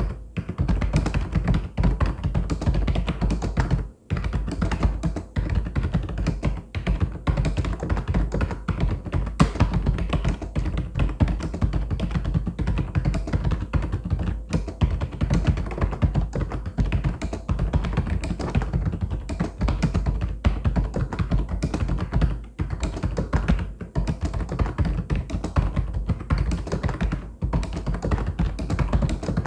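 Fast, continuous typing on a mechanical keyboard, keys clacking in a dense stream, with brief pauses about four seconds in and again past the twenty-second mark.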